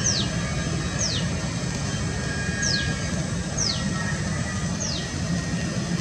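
A songbird's high whistle sliding steeply downward, repeated five times at roughly one-second intervals, over a steady low background rumble.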